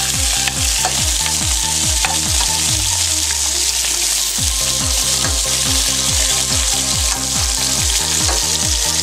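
Sliced zucchini, yellow squash and onion sizzling in hot oil in a skillet as they are moved around the pan. A regular low pulsing of about three beats a second runs underneath.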